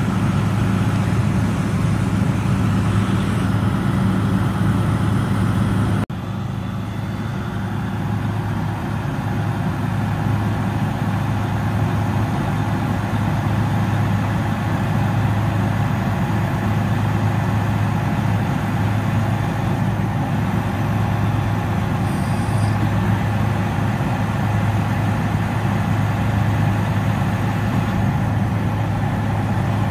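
Detroit Series 60 six-cylinder diesel of a Freightliner Columbia truck running steadily while the Hiab knuckleboom crane's hydraulics fold the boom in. A brief dropout about six seconds in.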